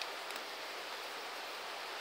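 Campfire burning with a steady hiss and a couple of faint crackles near the start.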